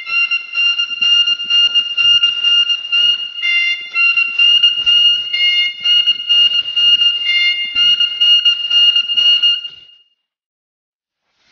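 Suona (Chinese double-reed horn) playing a long, high, piercing held note over a steady pulsing rhythm. It cuts off about ten seconds in, and after a short silence the suona comes back in at the very end.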